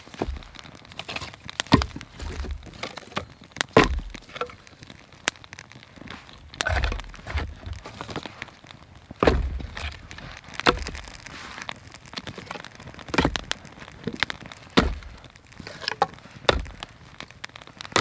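Dry split kindling cracking and knocking as it is laid onto a small, newly lit campfire: irregular sharp cracks about every second or two, some with a dull thump.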